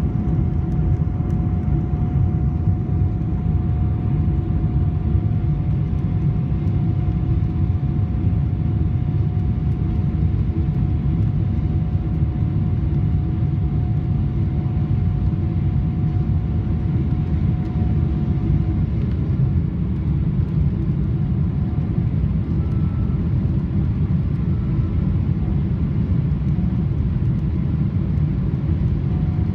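Boeing 777-300ER cabin noise: a steady low rumble of its GE90 engines and airflow, with a faint thin steady whine that fades out about two-thirds of the way through.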